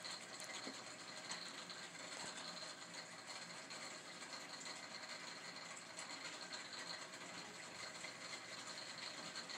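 Steady faint hiss of background room noise, with a few faint ticks.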